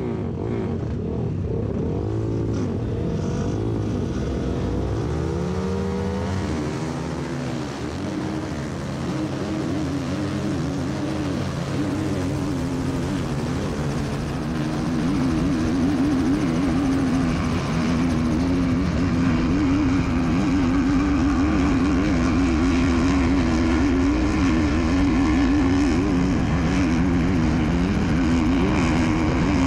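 Dirt-bike engines revving, their pitch rising and falling, for the first several seconds. After that comes a steady, wavering propeller hum from a camera drone.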